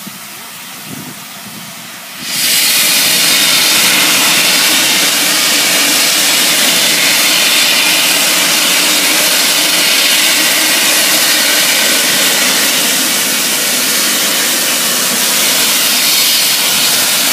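Steam locomotive starting away with its cylinder drain cocks open, blowing off steam in a loud, steady hiss that comes on suddenly about two seconds in.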